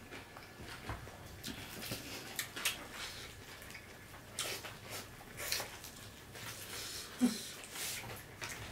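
Eating sounds: wet chewing and lip-smacking, with scattered soft clicks and squelches of fingers mixing rice and curry, at irregular moments.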